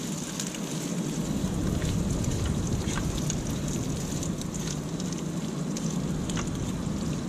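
Ham, bacon and eggs sizzling in a skillet on a small propane burner, crackling steadily throughout.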